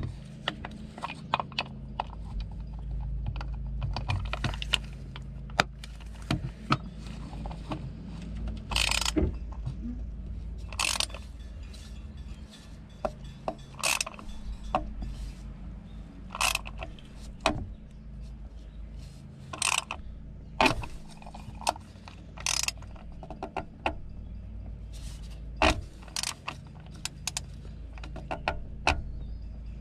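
Ratchet wrench clicking and clinking in short, irregular strokes as a new spin-on oil filter is snugged a little past hand-tight with a cap-type filter wrench. A steady low hum runs underneath.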